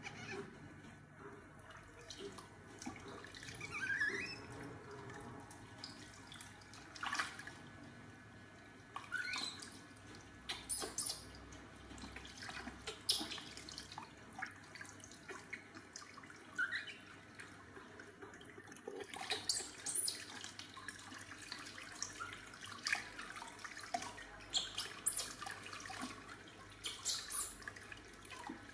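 Water splashing and dripping into a plastic tub as a baby monkey is rinsed by hand, with scattered sudden splashes. A few short, high, rising squeaks from the baby monkey come through now and then.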